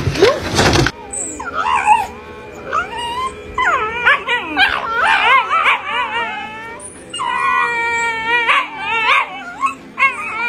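Shiba Inu dogs mouthing at each other, giving a string of high-pitched, wavering howls and yips, some calls drawn out for a second or more. A short burst of noise comes before them at the very start.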